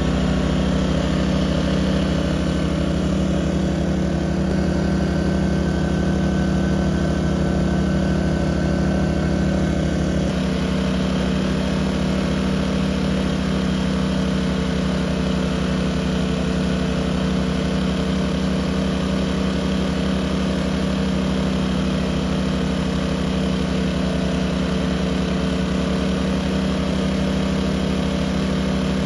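Two Firman W2000i inverter generators running in parallel under an electric load, giving a steady engine hum. About ten seconds in the engine note shifts as their engine speed changes.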